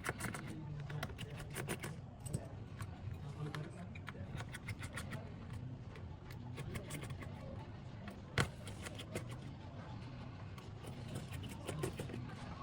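Quick light clicks and taps of small-part handling work, with a sharper click about eight seconds in, over a low murmur of background voices.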